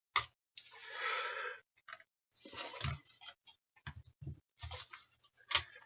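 Light clicks and taps of a screwdriver and small screws being handled while a graphics card is taken apart, with a brief scraping rustle about a second in.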